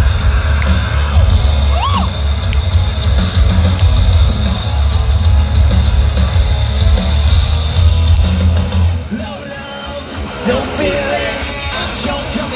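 Live hard rock band playing loud through a festival PA, heard from within the crowd: a heavy bass-and-drum groove that drops out about nine seconds in, after which singing comes in. A single yell rises out of the crowd about two seconds in.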